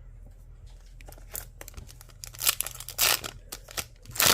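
A foil trading-card pack being torn open and its wrapper crinkled: a run of sharp tearing and crinkling rustles starting about a second in, the loudest near the end.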